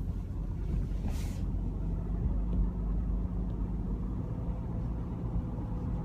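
2015 Subaru Outback's 2.5-litre flat-four boxer engine running with a steady low drone and a faint higher hum, with a brief rustle about a second in. The owner calls the noise pretty obvious and says it goes with acceleration. He takes it for an intermittent fault that shows up in cold weather, not normal boxer engine sound.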